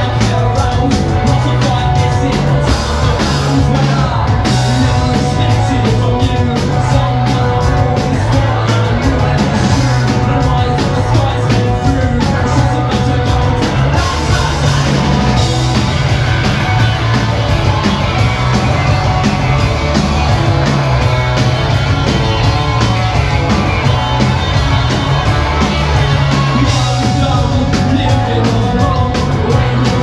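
Live rock band playing a fast punk-rock song: electric guitars, bass and drums at full volume, with singing.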